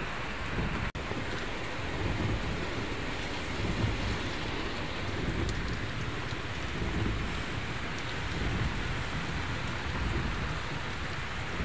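Heavy rain drumming on a vehicle's roof and windows, heard from inside the cabin as a dense, steady wash with a low rumble. The sound cuts out for an instant about a second in.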